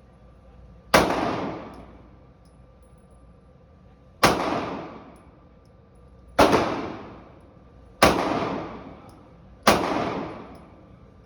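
Five single gunshots fired at an uneven pace, about a second to three seconds apart, each sharp crack trailing off in a ringing echo for about a second.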